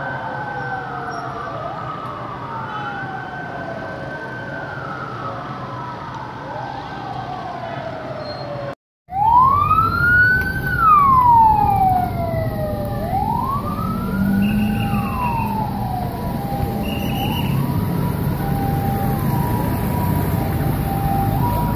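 Several vehicle sirens wailing at once, their rising and falling tones overlapping. After a brief break about nine seconds in, a single siren wails slowly up and down, loudest at first and then fading, over a low rumble of traffic.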